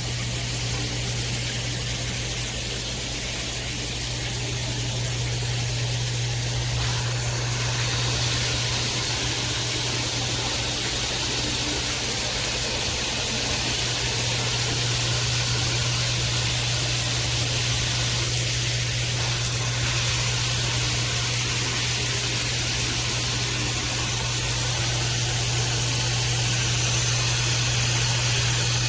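A shower head spraying water steadily, with a constant low hum underneath.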